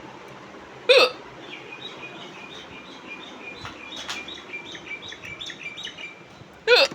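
A woman's loud hiccups, two sharp single gulps, about a second in and again near the end. Between them a small bird chirps steadily in an even run of short, high chirps, about two a second.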